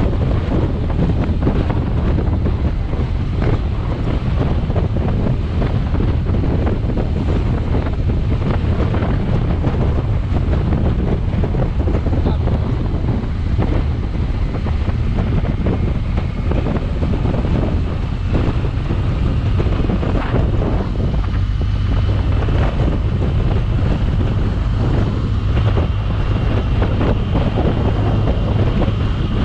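Steady wind rush buffeting the microphone of a camera mounted on a moving motorcycle, with the bike's engine and road noise running underneath.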